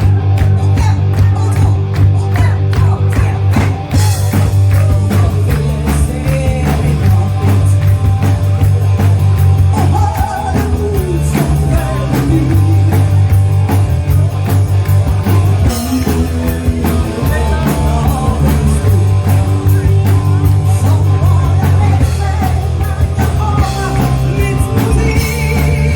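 A rock band playing live, with a lead vocalist singing over heavy bass and drums.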